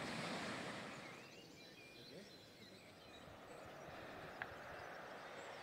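Faint outdoor ambience: a steady low hiss, with a few short high chirps a little over a second in and a single sharp click about four seconds in.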